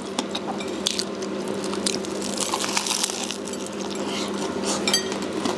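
Close-up chewing and biting of burgers, many small irregular clicks and mouth noises picked up by a clip-on microphone, over a steady low hum.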